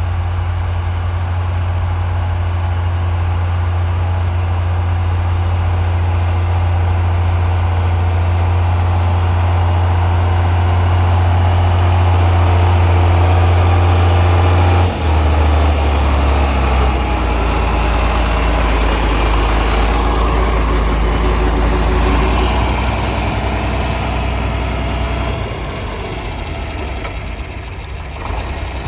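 John Deere tractor engine running steadily with a deep drone; about fifteen seconds in its note drops to a lower pitch and holds there, growing somewhat quieter near the end.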